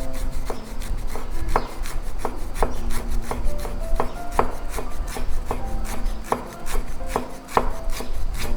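Knife chopping food on a wooden cutting board in steady, even strokes, about two to three a second.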